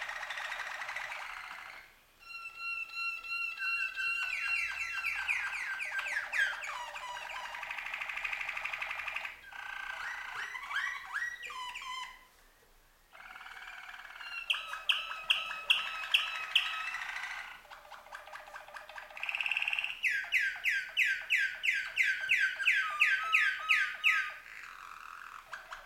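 Two domestic canaries singing in duet: long runs of rapid trills, rolling phrases and fast repeated notes, broken by short pauses about two seconds in and again about twelve seconds in.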